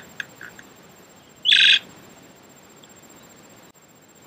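Mynas at a bird table: a quick run of short chirps, about four a second, dies out in the first half-second. About a second and a half in comes one loud, harsh call lasting a quarter of a second.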